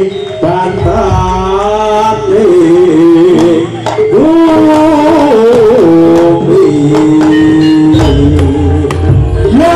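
Live jaranan ensemble music playing loud: a wavering, sliding melody line over drums, with heavy low drum strokes coming in near the end.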